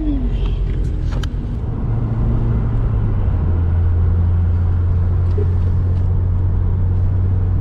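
Subaru WRX's turbocharged flat-four with full bolt-ons and a Perrin cat-back exhaust, heard from inside the cabin while cruising: a steady low drone that settles in about two seconds in. A short falling tone and a few clicks come right at the start.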